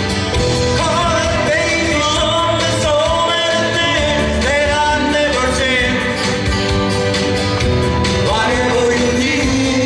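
A woman singing a pop song live into a microphone, with acoustic and electric guitar accompaniment over the PA.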